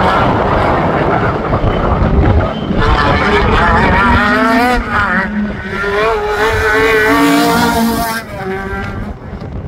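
Sprint car's engine under hard acceleration, its note climbing in steps as it changes up through the gears, then holding high and wavering before dropping away about eight seconds in as the car passes close by.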